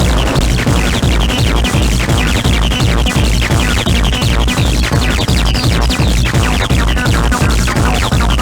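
Electronic dance music in a DJ set: a driving techno-style track with a heavy, steady kick-drum beat and busy synth and percussion above it.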